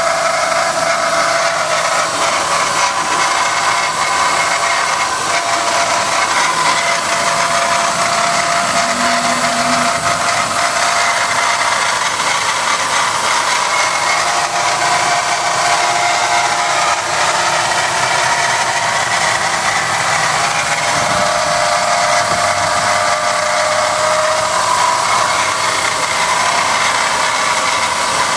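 Car engine running just after start-up with a steady metallic rattle, the kind the owner hears for about 20 seconds after starting the car before it goes away.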